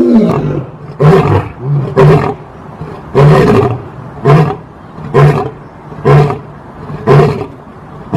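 A lion roaring in a bout: a loud roar at the start, then a string of short grunting roars about one a second.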